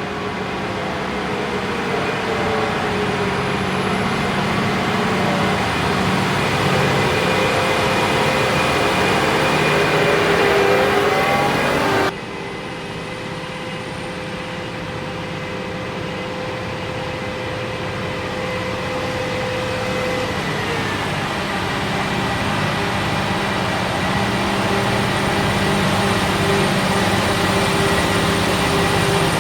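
Heavy harvest machinery running steadily, with a thin mechanical whine over the engine, growing gradually louder. It cuts off abruptly about twelve seconds in, and the same kind of machine sound builds again slowly.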